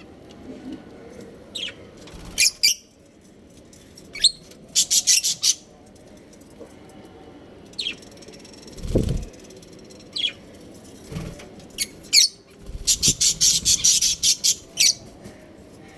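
Pet budgerigars chirping in short sharp calls and quick rapid runs, with a few brief low thumps among them.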